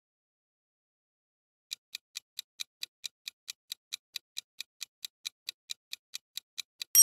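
Countdown-timer sound effect: clock-like ticking at about four to five ticks a second, starting nearly two seconds in. It ends on a bright, bell-like ding at the very end, marking that time is up.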